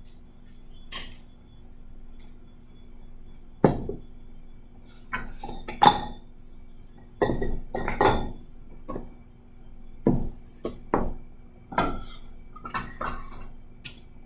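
Kitchenware clattering: about a dozen sharp clinks and knocks of dishes, pans and utensils being handled and set down, starting a few seconds in, over a steady low hum.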